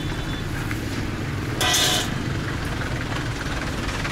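Street traffic running steadily, with one short, loud burst of noise a little under two seconds in.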